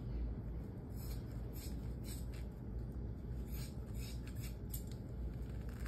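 Bandage scissors snipping through the soft padding under an arm cast: a series of short, sharp snips.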